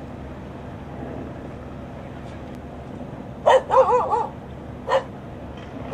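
A dog barking, a handful of short barks in quick succession starting about halfway through, over a steady low hum.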